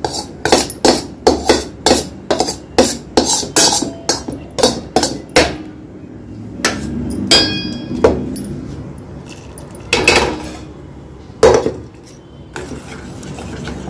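A metal spoon knocking repeatedly against a stainless steel bowl, about two or three strikes a second, as the last soaked sago pearls are scraped and knocked out. After about five seconds the strikes thin out to a few single clinks, one of them ringing.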